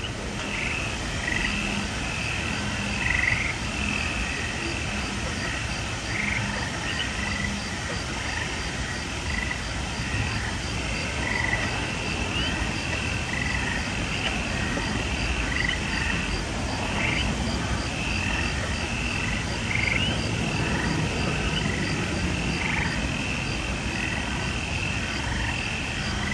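Frog-like chirping and croaking calls repeating over and over, with a faint, even high pulse of about three a second, over a constant rushing noise.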